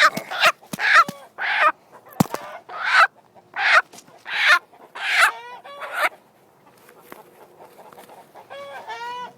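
A hen squawking loudly about nine times in six seconds while being held and handled, then a quick run of clucks near the end. A single knock sounds about two seconds in.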